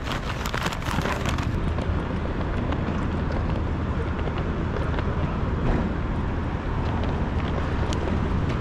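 City street noise: a steady low rumble of traffic with wind buffeting the microphone, and a run of sharp clicks and rustles in the first second and a half.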